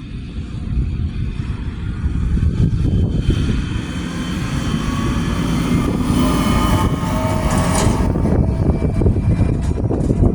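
Church bells ringing, their several steady tones clearest from about 3 to 9 seconds in, over a loud steady low rumble.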